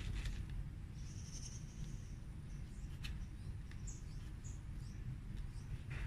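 Gloved hands pulling apart dry hibiscus roots and loose soil, with a couple of soft crackles, over a low rumble. Small birds chirp faintly in the background: one high held note about a second in, then a few short chirps.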